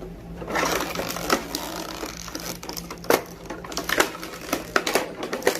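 Plastic packaging crinkling and rustling, with small plastic toy pieces clicking and knocking as a toy vending machine set is unpacked by hand.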